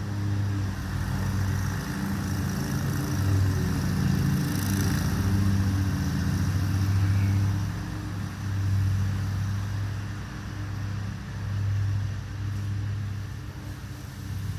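Lawn mower engine running steadily at a constant pitch, its loudness swelling and fading as it moves about.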